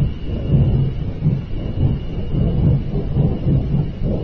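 Continuous low rumble that swells and fades unevenly, with a faint thin high tone running steadily above it. It is the kind of unexplained night-time rumbling noise that listeners call the weirdest they have ever heard.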